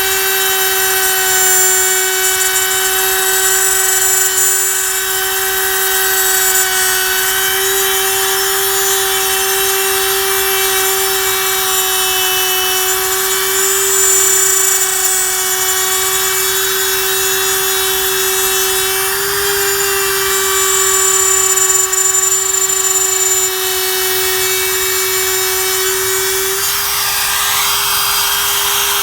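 Ridgid brushless handheld router running at steady speed with a 1/4-inch core box bit, routing grooves into wood: a steady high whine over a cutting hiss.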